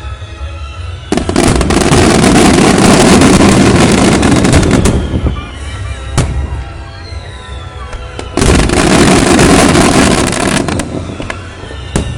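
Aerial fireworks going off: two long, dense volleys of bursts, each lasting several seconds, with single sharp bangs between them.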